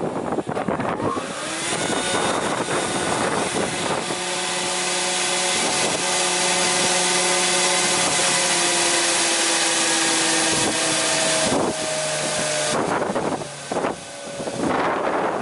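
STEHLE spindle moulder running with no wood being cut, after a few clicks at the start. Its whine rises in pitch over the first few seconds, runs steadily with the pitch sinking slightly, then cuts off about thirteen seconds in. A rushing, wind-like noise follows near the end.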